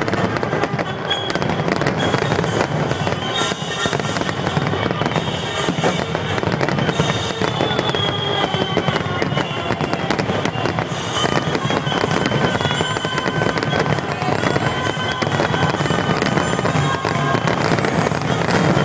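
Fireworks grand finale: a dense, unbroken barrage of bangs and crackling from many shells bursting in quick succession.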